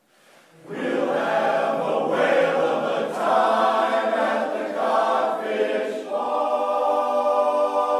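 Men's barbershop chorus singing a cappella in close harmony. The chorus comes in after a brief pause just under a second in, and settles into a long held chord about six seconds in.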